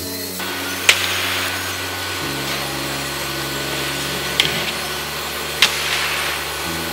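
Sliding table saw with dust extraction running as it rips beech slats, a steady whirring hiss. Three sharp wooden clacks cut through it, one about a second in and two more a little past the middle.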